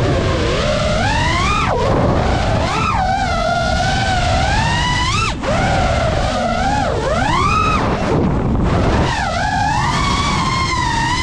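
FPV quadcopter's electric motors whining, the pitch swooping steeply up and down with the throttle, over a low rushing noise. There is a brief drop about five seconds in.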